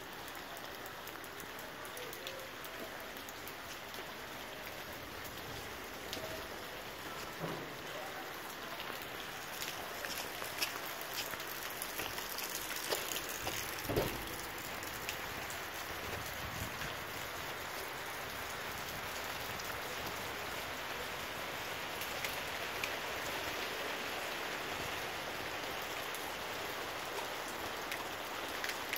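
Rain falling steadily onto a flooded street, a continuous patter with many small drop clicks. One sharper knock about halfway through.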